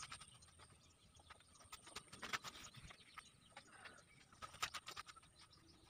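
Quiet pondside sound with faint bird calls, broken by two short clusters of clicks and knocks, about two seconds in and again near the end.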